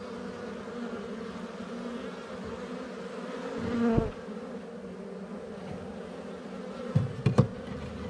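A cloud of angry honey bees buzzing around the opened hive, with a steady wavering hum; one bee passes close by about four seconds in, its buzz swelling and dropping in pitch. A few sharp knocks sound near the end.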